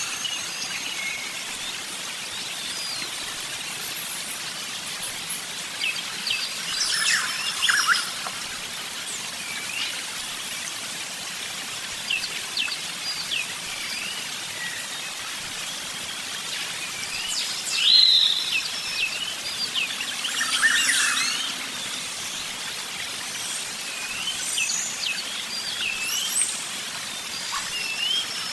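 Several wild songbirds chirping and singing: many short, high chirps and quick warbled notes over a steady background hiss, with louder bursts of calls at about a quarter of the way in and twice about two-thirds of the way in.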